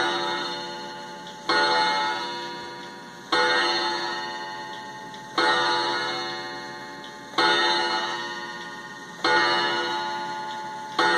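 Bentwood 31-day wall clock striking, six blows about two seconds apart, each ringing out and fading before the next, with the clock's ticking underneath.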